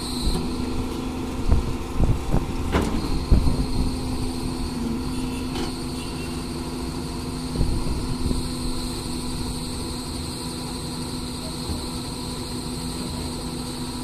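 Doosan crawler excavator's diesel engine running steadily, with a cluster of knocks and thumps in the first few seconds and a smaller one about seven and a half seconds in.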